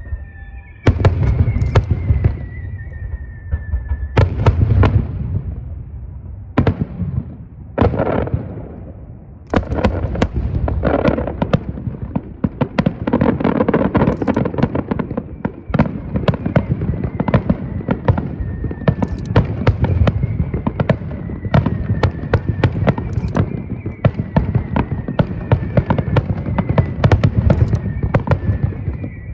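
A starmine rapid-fire fireworks barrage: a few separate heavy booms of bursting shells in the first several seconds, then from about ten seconds in a dense, continuous run of bangs and crackle with a deep rumble.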